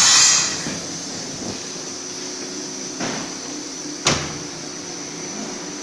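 Extrusion blow moulding machine running: a burst of hiss at the start dies away within half a second over a steady mechanical hum and a faint high whine. Two sharp clunks come about three and four seconds in, the second louder.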